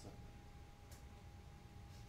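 Near silence: room tone with a faint steady hum and one faint tick about a second in.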